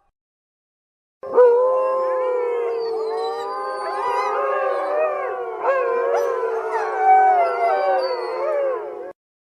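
A pack of wolves howling in chorus, many voices overlapping and gliding up and down in pitch. It starts about a second in and cuts off suddenly near the end.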